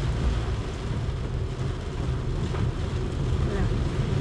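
Steady low rumble inside a car's cabin as the car drives through a flooded street in heavy rain, water spraying up around it.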